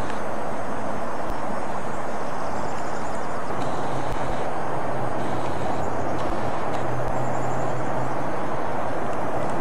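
A steady roar, with the low drone of a BNSF diesel locomotive growing about three and a half seconds in as the train approaches.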